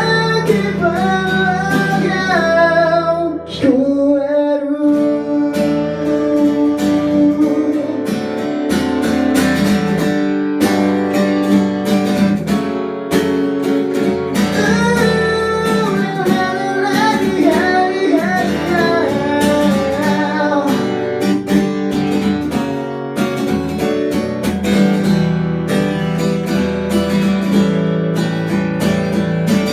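Acoustic guitar strummed steadily in a song, with a sung melody over it for much of the time.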